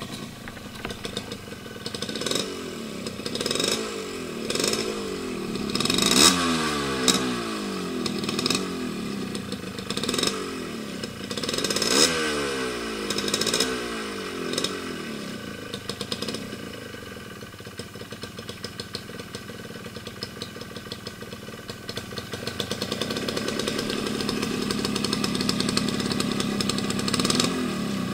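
Suzuki two-stroke motorcycle engine revved at standstill in a series of quick throttle blips, pitch rising and falling back each time, then settling to a steady idle, with a longer held rise in revs near the end.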